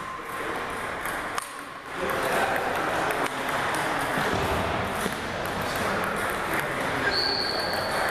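Table tennis rally: the ping-pong ball clicking sharply off paddles and the table, with more ball clicks and a hum of voices echoing in the gym hall. A brief high squeak sounds near the end.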